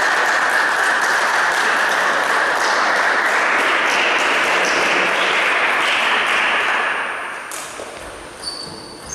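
Audience applauding after a table tennis rally ends, holding steady and then dying away about seven seconds in. A couple of short high squeaks come near the end.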